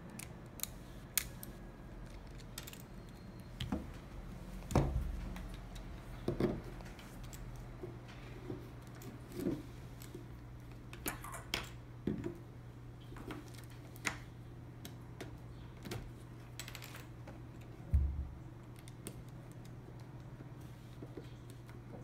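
Plastic LEGO bricks and tiles clicking and rattling as a small LEGO puzzle box is handled and its pieces are pushed and moved. There are scattered light clicks and two heavier knocks, one about five seconds in and another near the end, over a steady low hum.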